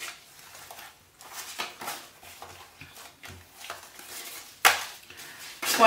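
Paper cash bills and envelopes being handled: scattered short rustles and light taps, with a louder rustle near the end.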